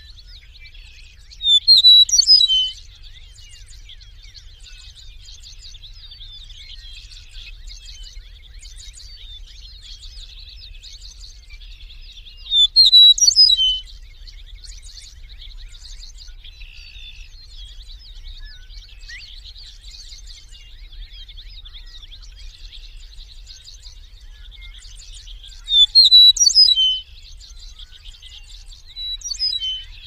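Meadowlark singing: three short, loud song phrases about twelve seconds apart, and a fainter one near the end. Under them runs a steady background of faint, high chirping from other birds.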